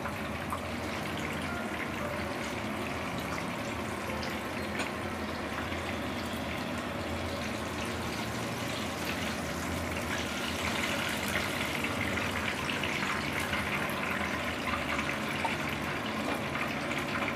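Chicken satay skewers deep-frying in hot oil in a kadai: a steady sizzle that grows louder from about ten seconds in.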